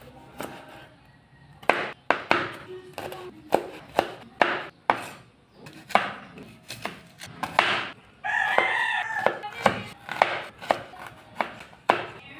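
Chef's knife chopping garlic and red onion on a bamboo cutting board, giving irregular sharp knocks of blade on wood about one or two a second. About eight seconds in, a short pitched call sounds for under a second.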